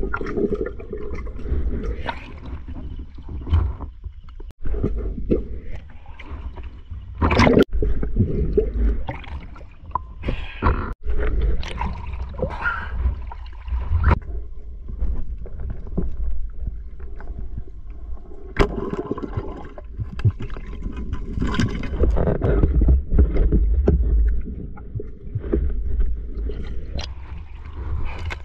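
Muffled rushing and gurgling of water around a diver's submerged camera, with irregular louder sloshes and splashes as it moves through and breaks the surface.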